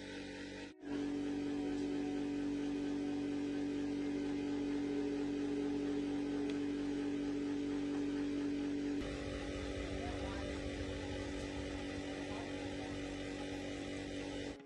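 Electric motor running with a steady hum. About nine seconds in the hum's tone drops away, leaving a rougher, lower rumble.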